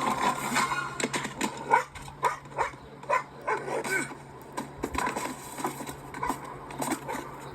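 Dog barking repeatedly in short sharp barks, mixed with clattering film sound effects.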